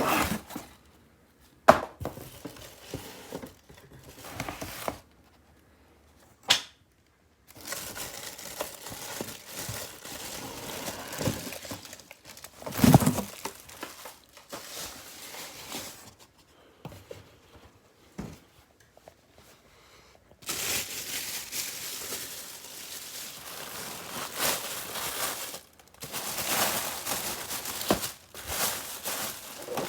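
Packaging being handled and unwrapped: wrapping crinkling and tearing, with a few sharp knocks and a longer stretch of steady crinkling in the second half.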